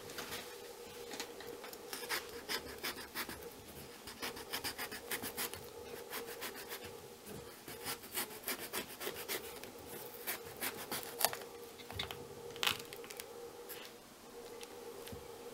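Kitchen knife scraping and cutting through the flesh and seeds of a small pumpkin to hollow it out: a run of quick scratching strokes, with a couple of sharper clicks about two-thirds of the way through, over a faint steady hum.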